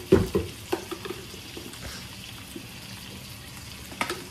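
Food sizzling in a frying pan, with a few sharp knocks of a utensil against the pan right at the start and another near the end.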